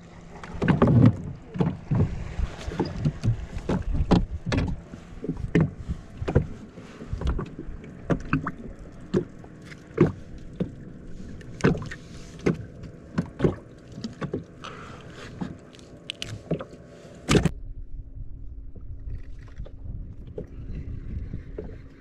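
Rapid, irregular knocks and clicks in a small boat as a hooked small grouper is handled and unhooked. A little past the three-quarter mark they stop suddenly, leaving a steady low rumble.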